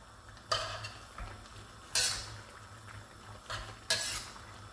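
Metal spatula stirring greens in a stainless steel wok, scraping and clinking against the pan: a handful of sharp clinks, the loudest about half a second, two and four seconds in.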